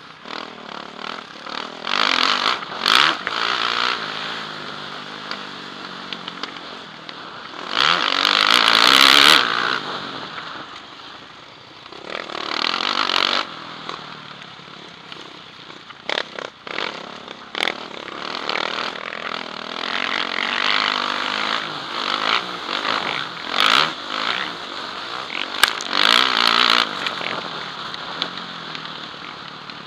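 Yamaha motocross bike's engine racing on a dirt track, heard from the rider's helmet. The engine revs rise and fall through the gears, with repeated loud full-throttle surges.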